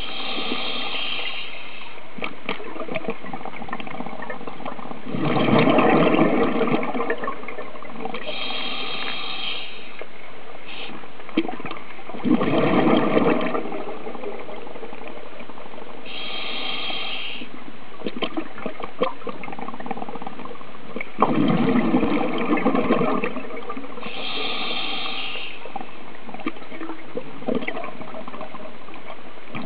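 Scuba diver breathing through a regulator underwater: a short hissing inhale, then a few seconds later a louder gush of exhaled bubbles, repeating about every seven to eight seconds.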